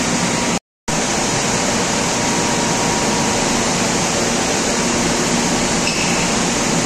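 Loud, steady factory-floor noise from bottling-line machinery and fans running. It cuts out for a moment just under a second in.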